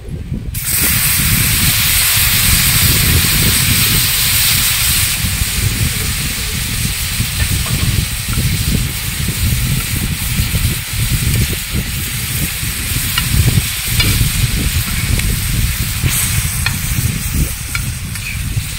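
Mutton curry poured into a hot iron kadai of fried mutton liver over a wood fire sizzles loudly, starting suddenly about half a second in and easing a little after about five seconds. A metal spatula stirring the pan scrapes now and then.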